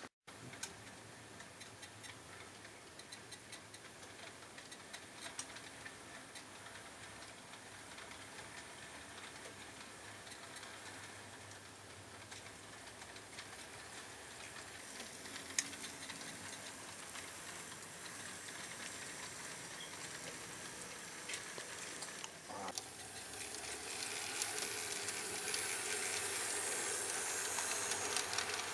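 HO-scale model train running on the layout: a steady rolling hiss with fine, rapid clicking, growing louder over the last few seconds as a string of hopper cars passes close by.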